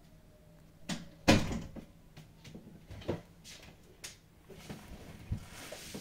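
Scattered knocks and thuds, one sharp, loud knock about a second in and fainter ones after, with a soft hiss near the end.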